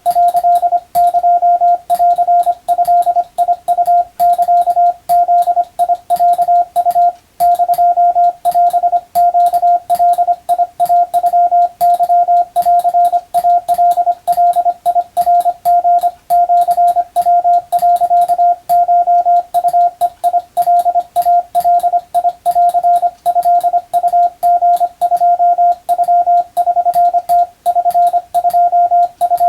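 Hand-keyed Morse code (CW): a single steady beep tone switched on and off in quick dots and dashes, with a sharp click at each keying and brief pauses between characters and words. It is Japanese Wabun code practice, telegram text of the kind sent for the radiotelegraph operator exam.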